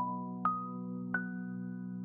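Background music: a steady low synth chord under a rising run of struck, bell-like notes, three in a row, each higher than the last.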